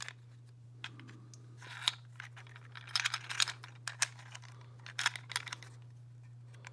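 Light plastic clicks and taps as the tiny drawers of a miniature Honey Bee Acres toy vanity are pulled out and handled by fingers, with a quick run of clicks about three seconds in. A steady low hum sits underneath.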